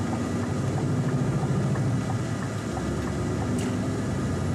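Lorry's diesel engine running steadily while driving, heard inside the cab as a low hum with road noise.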